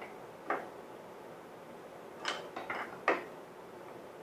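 A handful of short, irregular metal clicks and clinks from a wrench working the 13 mm nut that holds the two positive leads on the starter post. There is one click about half a second in and a cluster of three or four near the end.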